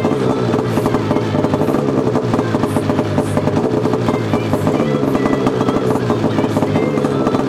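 Ski-Doo snowmobile's two-stroke engine running steadily after its first cold start, through an aftermarket MBRP exhaust can.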